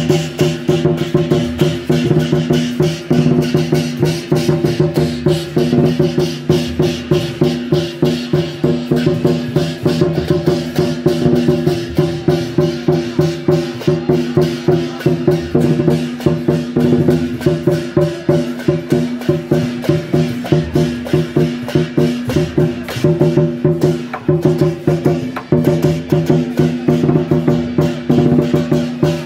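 Loud temple-procession music: a fast, steady percussion beat over sustained low tones.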